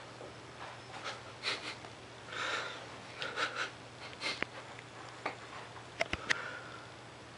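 Toilet paper rustling and crinkling in short irregular bursts as a kitten bats, bites and wrestles with the sheet, followed by a few light sharp taps near the end.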